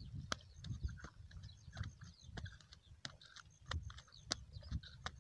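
Irregular light clicks and taps from hands handling a freshly caught fish and its hook and line on dry ground, over a low rumble.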